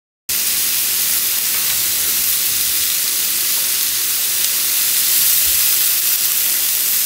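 Thick slices of pork sizzling steadily on a hot grill pan, a bright even hiss that cuts in suddenly just after the start.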